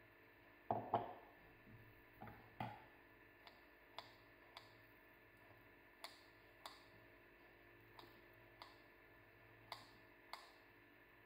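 Kitchen scissors snipping sun-dried tomatoes over soft dough: short sharp clicks, mostly in pairs, every second or two. A few louder knocks come about a second in.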